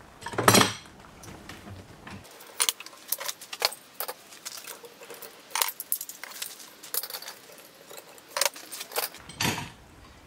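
Metal F-style bar clamps being unscrewed and pulled off glued-up wooden timbers: a scattered series of sharp metallic clinks and clacks as they are handled, the loudest about half a second in.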